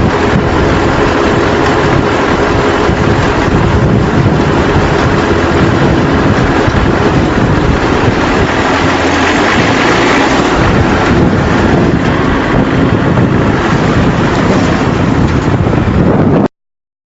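Round baler running, a loud steady machinery noise with wind on the microphone, cutting off abruptly near the end.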